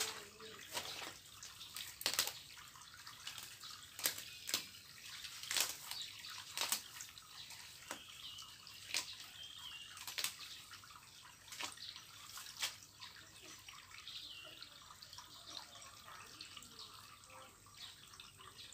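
Weeds being pulled by hand out of wet garden soil: irregular sharp snaps and tears, about one or two a second, thinning out about two thirds of the way through, over a wet rustle of leaves.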